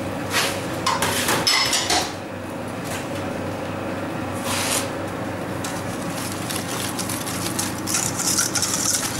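Steady background hum with a few knocks and clinks of kitchen bowls and utensils, then a whisk scraping round a stainless steel bowl near the end as sugar is mixed into melted chocolate.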